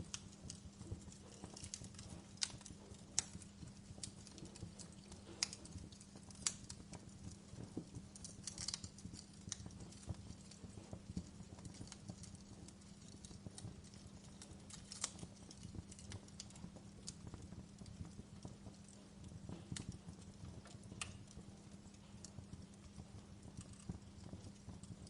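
Wood fire crackling: irregular sharp pops and snaps, a few each second, over a low steady hum.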